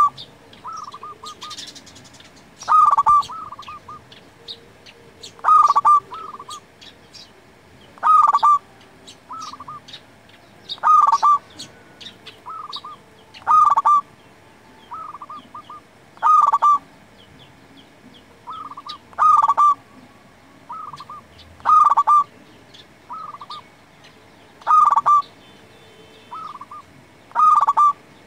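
Zebra dove (perkutut) cooing its song: a loud phrase of quick coos repeated about every two and a half to three seconds, with softer coo notes between phrases. Faint high chirps from other small birds sound behind it.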